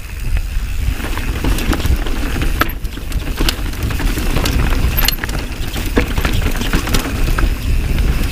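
Mountain bike riding down a rough trail: a steady rumble of tyres and wind on the camera microphone, with frequent irregular sharp clacks and rattles from the chain and frame over the bumps.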